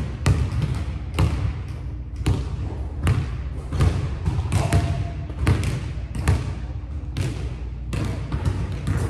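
Basketball dribbled on a hardwood gym floor, about one bounce a second, each bounce echoing in the large hall.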